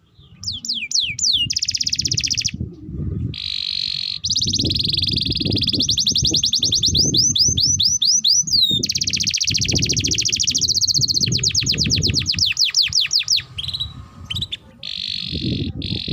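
Domestic canary singing a long, loud song of fast trills and rapidly repeated falling notes, with brief pauses about three seconds in and near the end. A low noise runs underneath.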